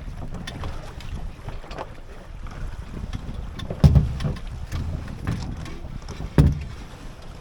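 Wind buffeting the microphone aboard a small racing sailboat under way, with water noise, broken by two sharp knocks about four seconds and six and a half seconds in.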